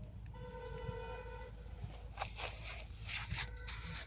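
A horn sounds a steady, flat tone for about a second, then gives a shorter toot near the end, over a constant low rumble. A few brief rustling noises come in between.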